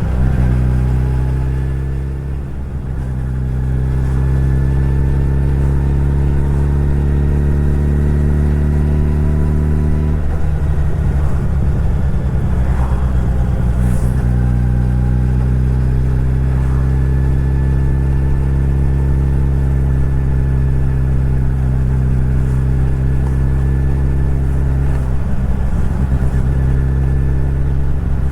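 Suzuki Hayabusa motorcycle engine running under way at a fairly steady speed. The note sags slowly, then shifts about ten seconds in and again near the end.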